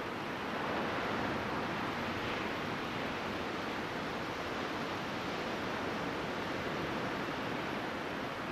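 Ocean surf washing on a beach, a steady rush that swells slightly about a second in.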